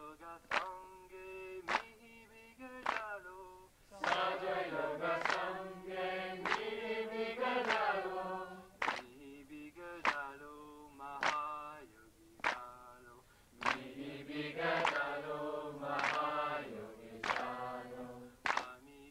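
Voices singing a Marathi devotional song in a chanting style, with a sharp percussive beat about once every second and a bit keeping time.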